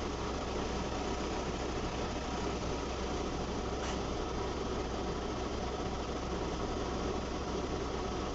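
Car engine running steadily at low speed, heard from inside the car's cabin.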